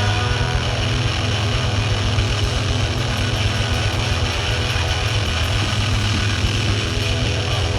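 A steady low engine rumble, idling, with a rapid even pulse.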